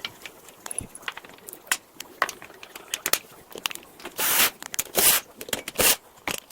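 Handling noises from working on a treadmill: scattered clicks and knocks, then three short scrapes about four, five and six seconds in.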